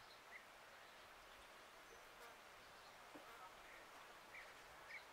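Near silence: faint outdoor ambience with a few faint, short chirps.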